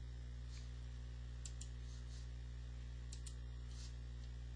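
Faint computer clicks, most likely a mouse, as single clicks and a couple of quick double clicks, over a steady low hum.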